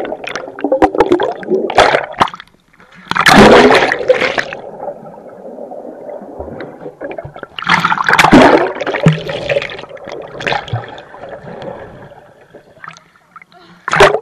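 Pool water splashing and gurgling against a camera in a waterproof case, which muffles the sound. There are louder surges about three seconds in and again about eight seconds in.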